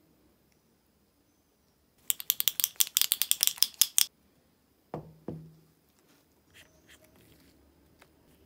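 A touch-up paint pen is shaken hard for about two seconds, its mixing ball rattling fast inside to stir the metallic paint. Two knocks follow about a second later, then faint handling as the cap is unscrewed.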